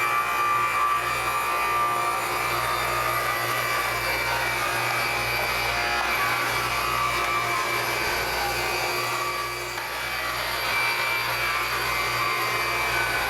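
Power saw running steadily while cutting through a piece of wood, with a short dip in level about ten seconds in.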